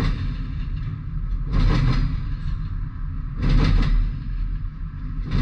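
Double-stack intermodal freight train rolling past at a grade crossing: a steady low rumble, with a sharp clatter about every two seconds as each set of car wheels crosses the track joints.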